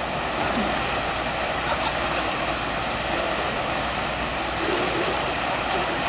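Steady rush of water pouring from water-slide outlets and splashing into a pool.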